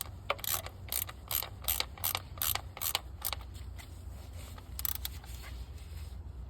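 Socket ratchet wrench clicking in quick, even strokes, about three a second, then two more clicks a little later, as the ignition coil hold-down bolts are snugged reasonably tight.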